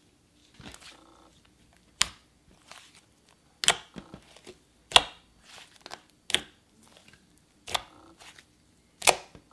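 Pink butter slime being pressed and stretched by hand, giving sharp clicking pops about every second and a half, with softer squishing and crackling between them.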